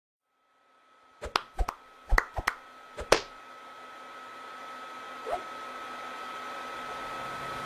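A handful of sharp clicks and knocks, then a steady rush of air from a fan with a thin high whine, growing gradually louder.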